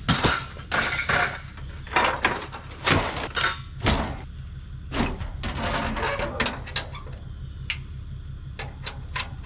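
Broken granite countertop pieces being dropped and thrown onto a pile: a series of hard stone crashes and clatters about once a second, heavier in the first half and lighter knocks toward the end, over a steady low hum.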